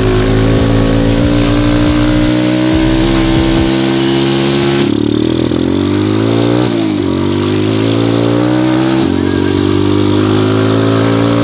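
125cc pit bike engine running under way while being ridden, its note climbing steadily for the first few seconds, then dipping sharply and climbing again about halfway through before settling.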